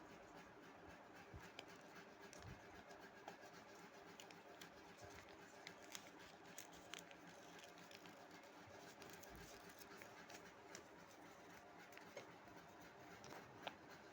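Very faint paper handling: soft rustles and scattered small ticks of sheets being creased and folded, over near-silent room tone.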